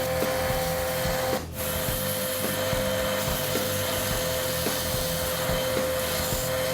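A grinder running steadily with a high whine while the steel knife blank is ground and sanded to shape. The sound drops out briefly about a second and a half in.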